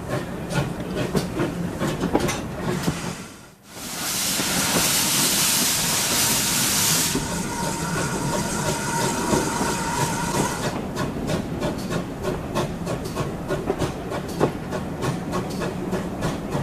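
Steam train running, with a steady run of clicks. About four seconds in, a loud hiss of steam bursts out for about three seconds, then eases to a softer hiss carrying faint steady tones, which stops about eleven seconds in.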